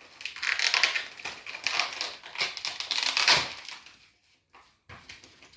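Crinkling, crackling rustle of plastic packaging being handled, strongest over the first three and a half seconds and then dying away to a few faint rustles.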